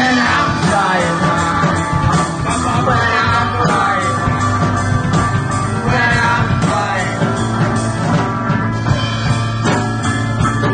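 Live psychedelic rock band playing loud and steady: electric guitar over a drum kit keeping a regular beat.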